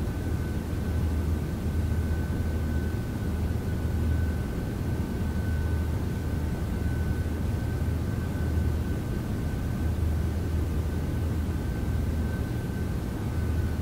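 Steady low mechanical hum with a thin high whine above it and a light hiss, unchanging throughout.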